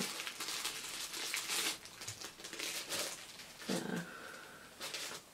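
Clear plastic bag crinkling in irregular crackles as a small item is handled and pulled out of it.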